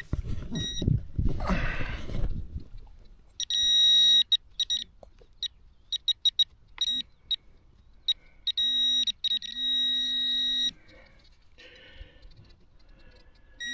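A metal detector pinpointer sounding over a target in the dug soil, a steady electronic tone broken into short beeps with two longer continuous stretches as the probe closes on a buried coin. A scraping, rustling noise comes first, for about two seconds.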